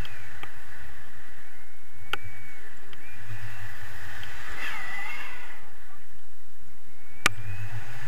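Wind rushing over the camera microphone in paraglider flight, with low buffeting and thin whistling, and two sharp clicks, one about two seconds in and a louder one near the end.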